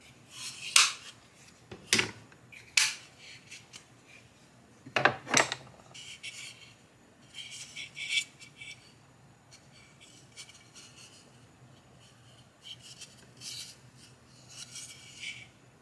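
Irwin Quick-Grip bar clamps coming off a glued wooden workpiece and being set down, with four sharp clacks in the first six seconds. Softer rubbing and scraping follow as the glued-up dowel box is handled.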